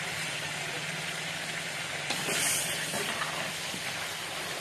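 Brinjal pieces sizzling in hot oil in a large kadai as a perforated ladle scoops them out, with a louder burst of sizzle and clatter about two seconds in. A steady low hum runs underneath.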